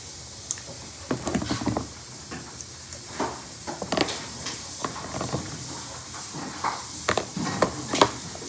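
Scattered light knocks, taps and scrapes of hands and a spoon on a plastic tub of cake batter, with short mouth noises as the batter is licked.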